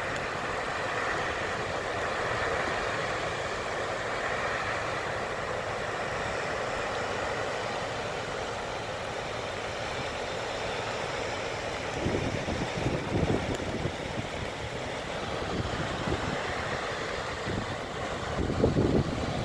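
Steady rush of water pouring through a dam's open floodgates. Gusts of wind hit the microphone about twelve seconds in and again near the end.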